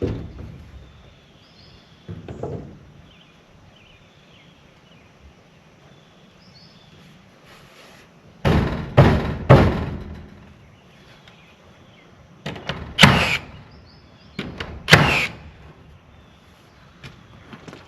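Irregular heavy thuds and knocks: one at the start, another about two seconds later, three in quick succession about halfway, then two more a couple of seconds apart.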